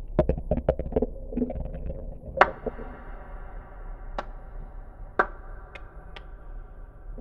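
Sharp clicks and knocks: a quick run of about ten in the first two seconds, then single sharp cracks about a second apart, over a steady low hum and a faint held tone.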